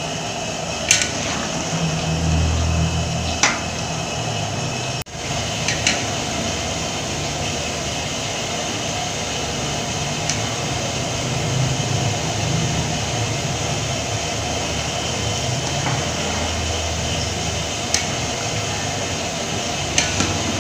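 A large wok of coconut-milk chicken curry simmering over a fire with a steady rushing noise. A metal spatula clinks sharply against the wok a few times.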